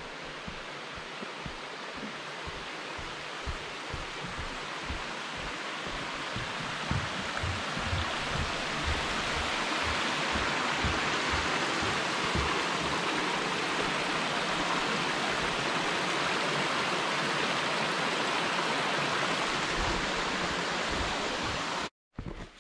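Steady rush of a stream's flowing water, growing louder over the first ten seconds and then holding, with soft low thumps of footsteps on the trail. It cuts off abruptly near the end.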